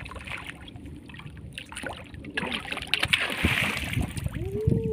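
A hooked fish thrashing and splashing at the water surface as it is gaffed and hauled out, the splashing heaviest about three seconds in.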